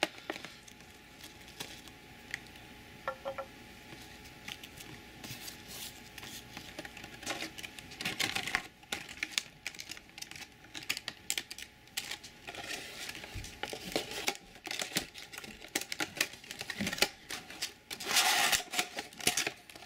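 Hands handling a clear plastic packaging tray, a foam sheet and a cardboard box: irregular plastic clicks, crinkles and rustles, with louder bursts of handling about eight seconds in and again near the end.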